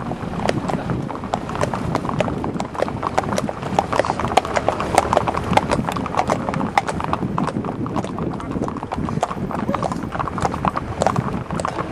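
Hooves of a group of horses clip-clopping on a paved road, many hoofbeats overlapping in an irregular clatter.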